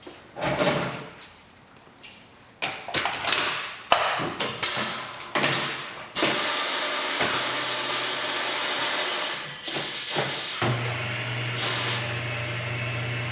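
Corghi Artiglio Master touchless tyre changer at work lowering a tyre bead: clatter and knocks for the first few seconds, then a loud, steady hiss of compressed air from about six seconds in. A low, steady electric-motor hum joins near the end.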